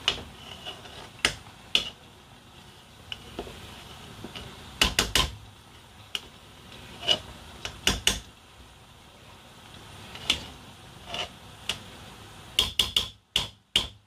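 A metal serving spoon scraping through cooked rice and knocking against the side of a metal cooking pot, with irregular sharp clinks, a quick run of them near the end.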